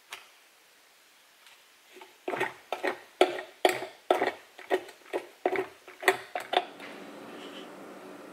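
A run of sharp clicks and knocks, about two a second for a few seconds, as stuck waffle is picked off the plates of an electric waffle maker. Near the end it gives way to a steady low hum.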